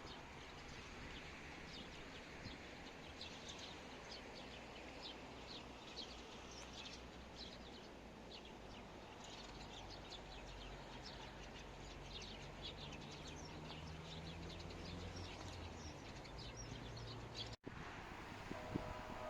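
Small birds chirping: many short, high chirps over a low, steady background rumble. The sound drops out for an instant near the end.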